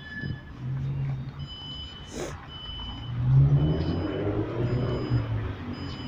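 Low engine rumble of motor traffic, rising and falling, loudest from about three seconds in.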